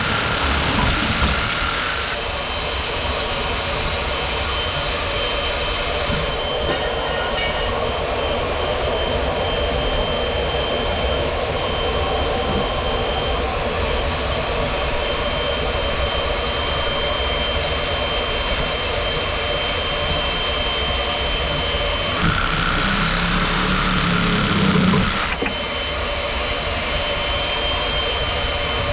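A machine running steadily, with a low rumble and a thin high whine. Its sound changes for about three seconds near the end, then settles back.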